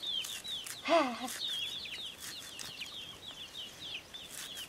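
Chickens peeping and clucking: a steady run of short, high, falling peeps, with one louder, lower cluck about a second in.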